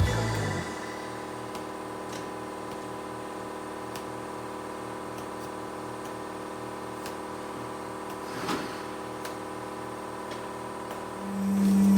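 A steady hum made of several fixed tones, with a brief rustle about eight and a half seconds in.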